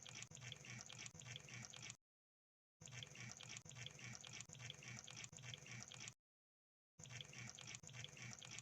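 Crab sound: faint wet clicking and bubbling crackle, in three stretches that stop dead about two seconds in and again about six seconds in, each time resuming within a second.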